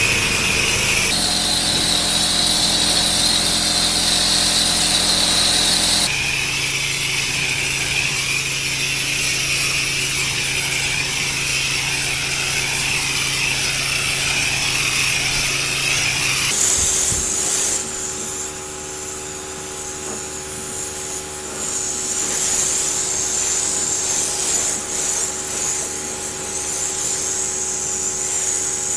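Pressure washer running, with a steady hiss of the water jet over the machine's drone, in several short clips joined together so the pitch of the hiss jumps at each cut.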